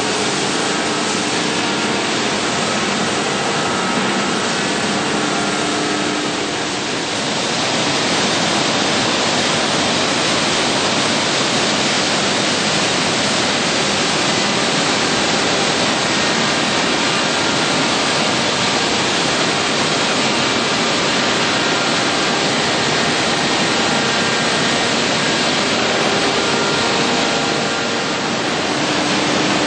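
Edge sanding line running: a steady, loud mechanical noise of sanding machines and their dust extraction, with faint hum tones. The sound shifts to a brighter hiss about seven seconds in.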